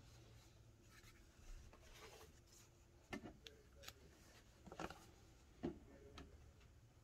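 Faint handling noises: a string of light clicks and taps with soft rubbing, as of things being moved about by hand.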